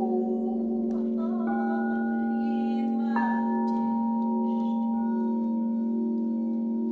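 Crystal singing bowls ringing together in several steady, overlapping tones over a strong low hum. A bowl is struck with a mallet about a second in and again about three seconds in, each strike adding a new higher tone that rings on.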